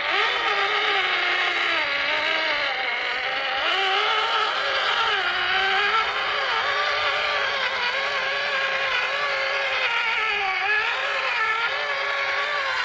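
Whine of a Tamiya High-Lift F-350 RC scale crawler's electric motor and gearbox, its pitch rising and falling again and again with the throttle as the truck drives.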